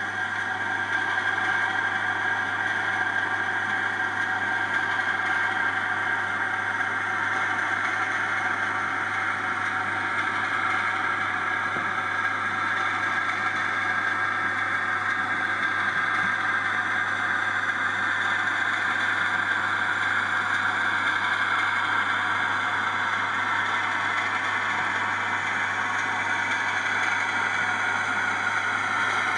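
00 gauge model diesel locomotive's DCC sound decoder playing a diesel engine running steadily through its small speaker.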